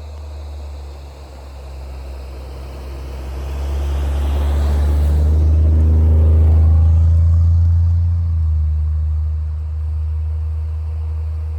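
A Jeep driving on a paved road: a steady low engine and road drone that swells to its loudest about six or seven seconds in, then eases off with a falling pitch.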